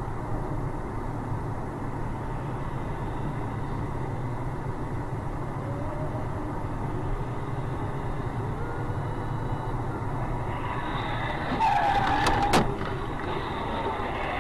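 Steady road noise of a car driving. About three-quarters of the way through comes a short, louder burst of sharp knocks with a brief squeal.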